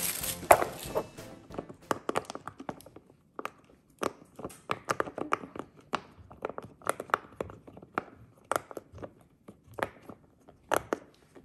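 Bubbles of a large game-controller-shaped silicone pop-it fidget toy being pressed one after another: a long run of irregular soft pops and clicks, several a second, with short pauses.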